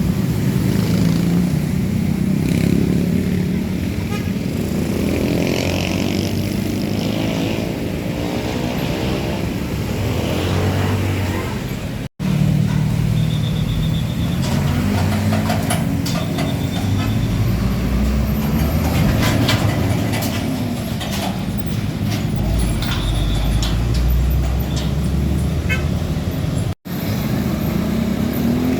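Road traffic with heavy diesel trucks driving past, their engines running and the pitch rising and falling as they go by; the sound cuts out abruptly twice.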